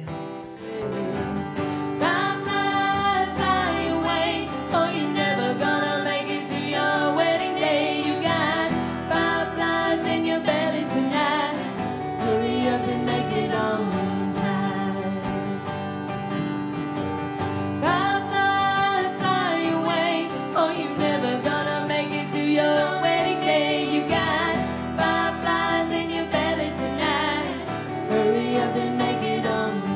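Two women singing in harmony over acoustic guitar.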